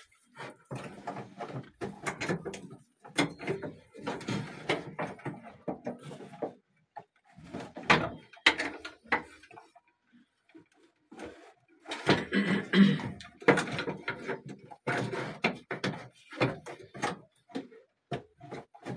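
Hard plastic knocks, clicks and scraping as a Super Asia washer-dryer's plastic top panel is handled and unscrewed with a screwdriver. They come in irregular bursts with short pauses, the busiest stretches about eight seconds in and again from about twelve seconds.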